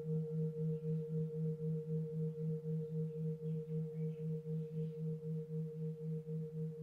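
Sustained low drone with a steady wobble of about four pulses a second, and a fainter higher tone held above it.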